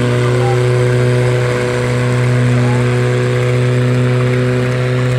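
Tractor diesel engines running hard at steady high revs while pulling against each other in a tug-of-war: a loud, even engine drone under full load.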